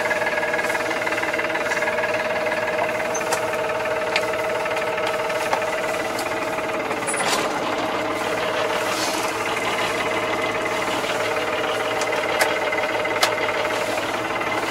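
Massey Ferguson 2220 tractor's engine running steadily, heard from inside the cab while it pulls a rear-mounted mower through grass. A few light knocks and rattles, and a brief swell in the noise about seven seconds in.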